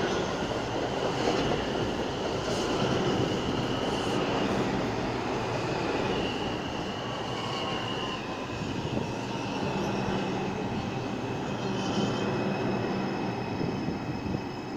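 R142 subway train rolling slowly along the platform and braking toward a stop: a steady rumble of steel wheels on rail with a high whine from the propulsion that jumps in pitch in distinct steps as the train slows.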